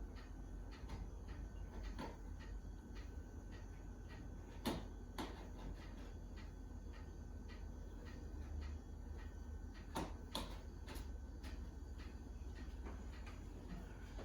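Hand tools working the painted wooden stops of an old window sash frame, scored and pried loose for removal: a run of small clicks and ticks, with a few sharper knocks about five seconds in and again near ten seconds.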